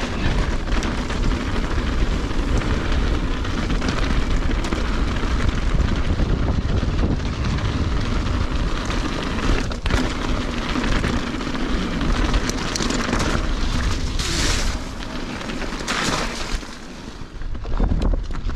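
Wind buffeting a chest-mounted action camera's microphone as a mountain bike runs down a muddy, stony trail, with tyre noise and the bike rattling over rocks. Two louder bursts of hiss come near the end.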